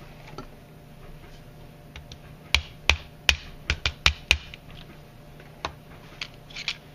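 Sharp metal clicks of a Ruger Mark I .22 pistol's parts being worked by hand during disassembly: about seven loud clicks in quick succession around the middle, then a few fainter ones near the end.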